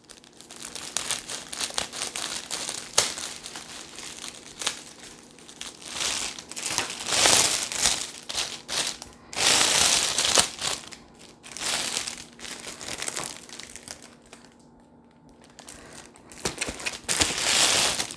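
Cellophane wrap crinkling and rustling in irregular stretches as it is gathered and handled, louder in patches with a short lull near the end.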